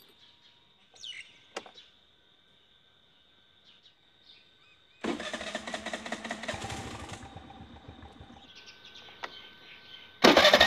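Scooter engine electric-started about five seconds in, catching at once and easing toward idle. Near the end it gets much louder, heard at an exhaust fitted with an empty drink can as a home-made muffler.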